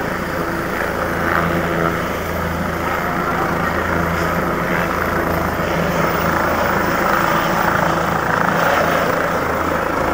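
Helicopter's turbine engine and main rotor running at close range, a steady low rotor beat under a turbine whine, as it powers up and lifts off near the end.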